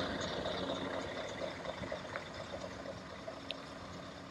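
Scania 770 S's V8 diesel truck running at low speed as it drives past pulling a loaded low-loader trailer: a steady, hissy engine and road noise that gradually fades.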